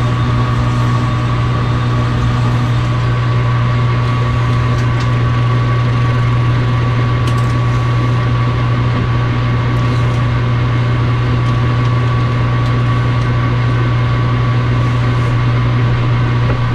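Metal lathe running steadily under power, a loud constant motor hum with a thin high steady whine.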